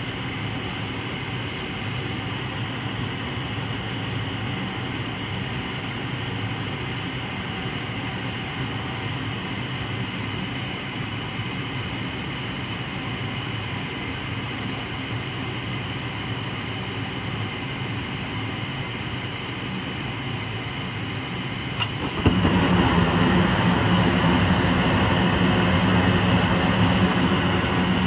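Gas furnace induced draft motor running steadily. About three-quarters of the way through there is a click, and the burners light with a sudden, louder rush of gas flame that keeps going. The furnace lights only because suction is being pulled on the pressure-switch hose by hand to close the switch.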